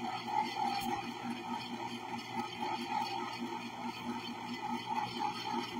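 Electric ice cream maker running, its motor churning a batch of ice cream mix with a steady, even pulse as the mix thickens.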